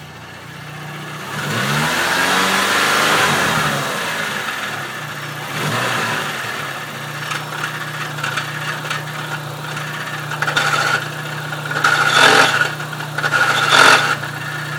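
Dodge SRT-4's turbocharged 2.4-litre four-cylinder engine idling, revved up and back down once about a second in and blipped again near six seconds, with three short, louder noises over the idle near the end. It is running on a newly fitted OEM clutch, and the owner suspects the throwout bearing or the clutch slave cylinder as the cause of the noise.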